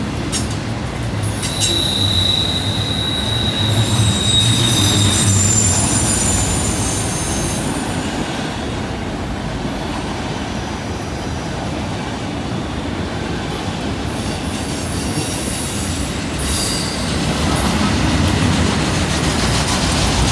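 Freight train of autorack cars rolling past on a curve: a steady rumble of steel wheels on rail, with a high wheel squeal from the curve rising about two seconds in and fading a few seconds later, and fainter squeals after.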